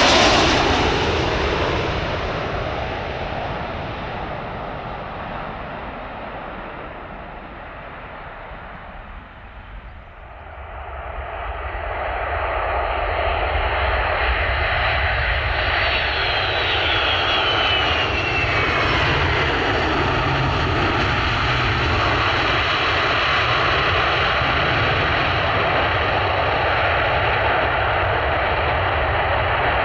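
Boeing C-17 Globemaster III's four turbofan jet engines as the aircraft passes low on landing approach, the noise fading away over the first ten seconds. The jet noise grows loud again about eleven seconds in around touchdown and holds steady through the landing rollout, with a falling whine partway through.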